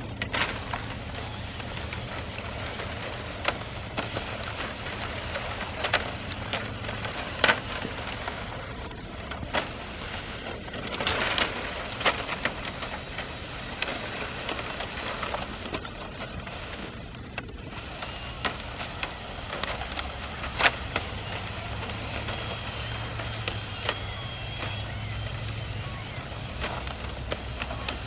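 Thin sheets of lake shore ice cracking and clinking together as the broken plates shift on the water. The cracks are sharp and irregular, with a dense patter of them about eleven seconds in, over a steady low rumble.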